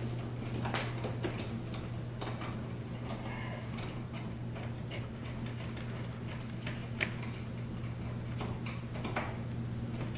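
Screws being driven by hand with a screwdriver into a metal ceiling electrical box, making irregular clicks and scraping ticks. A steady low hum runs underneath.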